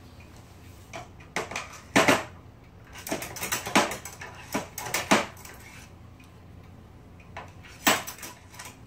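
Scattered sharp metallic clicks and clinks of small tools and parts being handled while an Olivetti Lettera 32 typewriter is taken apart, the loudest about two seconds in, around five seconds and near the end.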